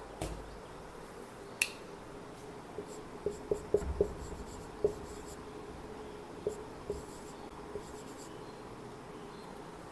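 Dry-erase marker writing on a whiteboard: short squeaks and taps of the marker tip against the board, bunched a few seconds in, with a sharp click shortly before them.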